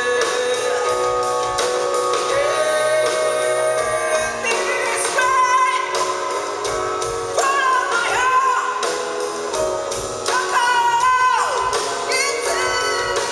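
A live rock band playing a ballad: a singer's voice carrying the melody over guitar and band, with a long falling slide of the voice near the end.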